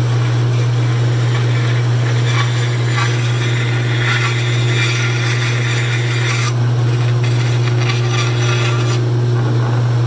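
Bandsaw running with a steady low motor hum while its blade cuts a curved corner off a thick glued-up mahogany cutting board. The cutting rasp is loudest in the middle and eases off after about six and a half seconds.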